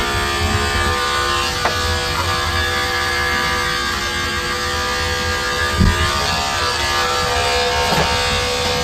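Corded electric dog-grooming clipper running with a steady buzz as it shears a poodle's coat. A brief low thump about six seconds in.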